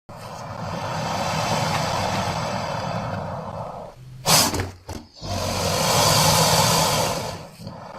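Custom-made creature roars for a monster character: a long rough roar, a short sharp shriek about four seconds in, then a second long roar.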